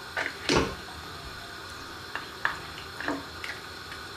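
A spoon stirring oxtail pieces in a pot of water, the liquid sloshing and splashing in a handful of short strokes, the loudest about half a second in, over a steady low hiss.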